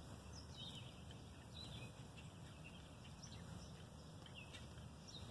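Quiet outdoor background: a faint steady low rumble with a few scattered, faint bird chirps.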